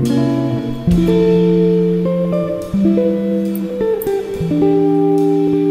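Instrumental background music: held notes and chords that change about once a second.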